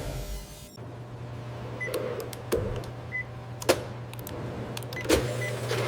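An electromechanical machine running with a low steady hum that starts under a second in, broken by three sharp clacks and three short high beeps.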